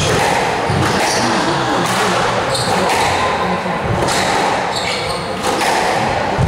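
Squash rally: the ball is struck by racquets and smacks off the court walls about once a second, with the players' shoes squeaking on the wooden court floor, echoing in the hall.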